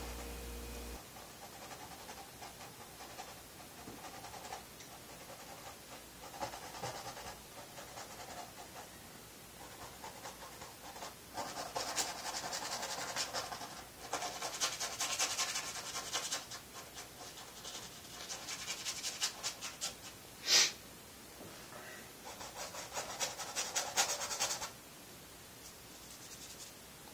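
Paintbrush scrubbing thin oil paint onto a stretched canvas, in spells of quick scratchy strokes, with one sharp tap about twenty seconds in.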